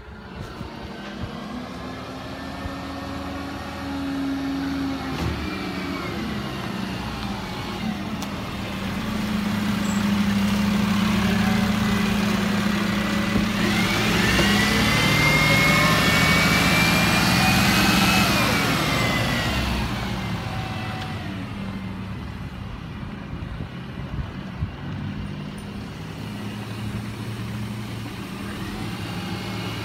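Refuse collection truck's diesel engine running as the truck drives past close by, growing louder to a peak about halfway through with a high whine as it goes by, then settling to a lower, steady running.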